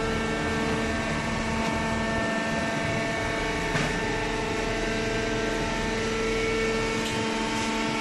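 Hydraulic cardboard baler's power unit running: a steady machine hum with several held pitches.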